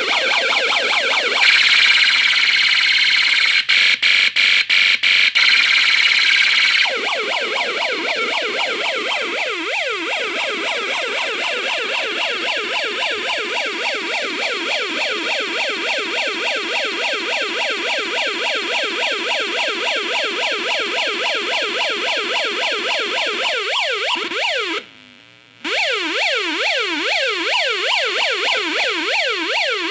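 Electronic siren module playing synthesized siren sounds: first a steady loud tone with a few brief cut-outs, then from about seven seconds in a fast, repeating up-and-down warble. The warble stops for about a second near the end, then starts again.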